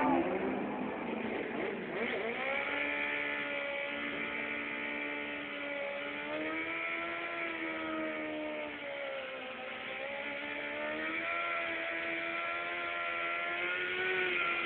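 Inline-four sport motorcycle engines held at high revs for a long stretch. The pitch climbs about two seconds in, sags about two-thirds through and climbs again, as in a rear-tyre burnout at the drag-strip start line.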